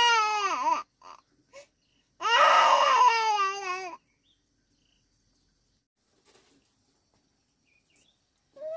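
Toddler crying: a wail that breaks off within the first second, a couple of short sobs, then a second, longer wail about two seconds in.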